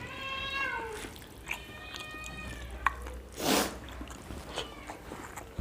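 A cat meowing twice: a first call whose pitch drops at the end, then a second, steadier one. About halfway through comes a short, loud burst of noise.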